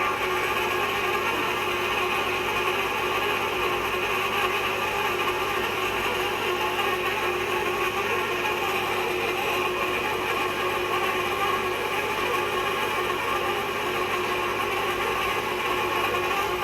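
Steady mechanical noise from a manually driven hot tapping machine working on a pipe.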